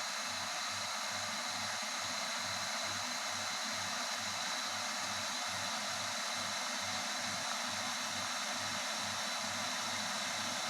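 RZTK KS 2217E electric kettle heating water towards the boil: a steady rushing hiss.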